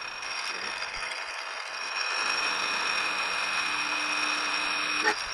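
Precision Matthews 1127 metal lathe running with a steady gear whine while the turning tool takes a light pass to skim red paint off the spinning bar stock. The cutting hiss grows louder about two seconds in, and there is a sharp click near the end.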